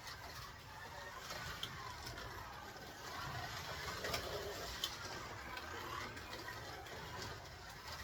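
Scalextric slot car's small electric motor whining, its pitch rising and falling over and over as the car speeds up and slows for the corners, with the car rattling along the plastic track and a few sharp clicks. The car runs with its traction magnet removed and slotted tyres fitted.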